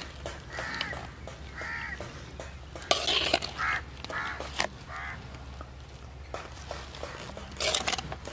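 Crows cawing, short harsh calls about once a second through the first five seconds, with a few sharp clicks.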